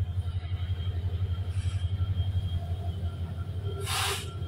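Coal train's diesel locomotive approaching slowly, its engine running with a steady, deep pulsing rumble. A short hiss breaks in about four seconds in.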